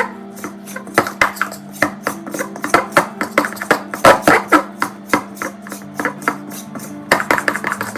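Background music with plucked guitar, over a run of irregular clicks and knocks from a spoon against a mixing bowl as flour is stirred into banana bread batter.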